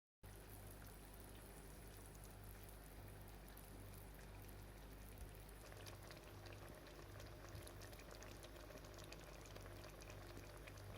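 Faint bubbling of a pot of borscht simmering on the stove: a fine, even crackle of small pops over a low hum.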